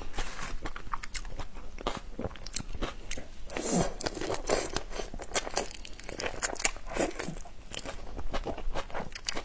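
Close-miked mouth sounds of eating whole raw marinated shrimp: shells crackling and crunching as they are bitten, with wet smacking and sucking. A louder wet stretch about four seconds in as the shrimp is pulled between the lips.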